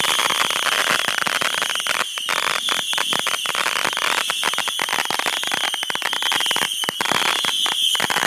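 Fireworks going off: a dense, irregular crackle of many small pops over a steady hiss.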